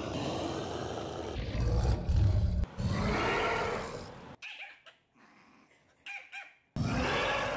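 Tyrannosaurus rex roar sound effects, one after another: a rough roar, a deep rumble, then a second roar. After a quieter gap with a few short faint calls from a small dog, another roar starts near the end.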